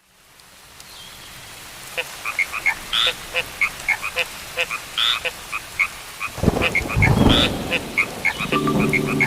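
Frogs croaking: many short calls repeated at an uneven pace, fading in at the start. About six and a half seconds in, a loud low rumble lasts about a second, and music begins near the end.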